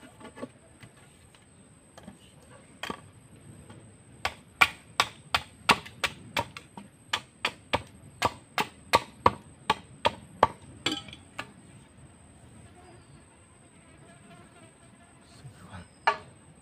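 A hand tool struck over and over in a steady chopping rhythm, about three strokes a second for several seconds, with a few single knocks before and after.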